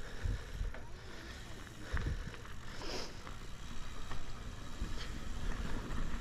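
Wind rushing over the microphone of a mountain bike's mounted camera on a fast dirt downhill, with tyre rumble and a few sharp knocks as the bike rattles over bumps.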